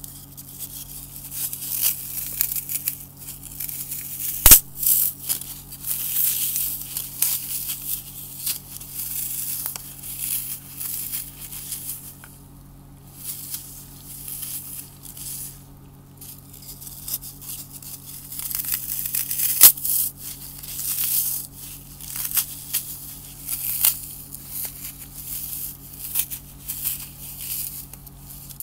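Dry floral foam bars crushed and crumbled in a gloved hand: crisp, irregular crunching and crackling, with two sharp, louder snaps as pieces break, one about four seconds in and one near the middle.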